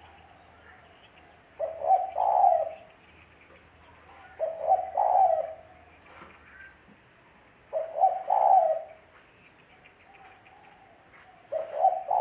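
Spotted dove (tekukur) cooing: a phrase of a short note followed by a longer one, repeated about every three seconds, four times, with the last cut off at the end.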